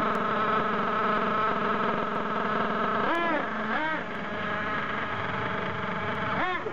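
Thunder Tiger MTA4 S28 RC monster truck's nitro engine idling with a steady high buzz, blipped up and down in short revs about three seconds in and again near the end as the truck pulls away.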